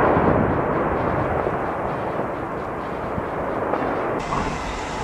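Explosive volcanic eruption: a continuous deep rumble packed with rapid low cracks and booms, slowly easing off.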